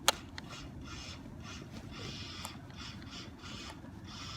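Toy remote-control car revving, a mechanical whir that surges and fades about two to three times a second, after a sharp click at the start.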